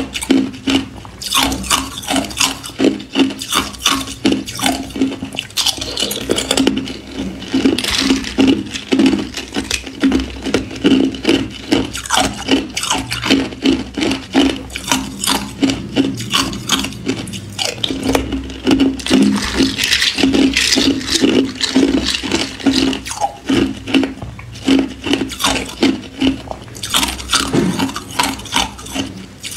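Hard ice cubes being crunched and chewed close to the microphone: dense runs of cracks and crackles in clusters, with short pauses between bites.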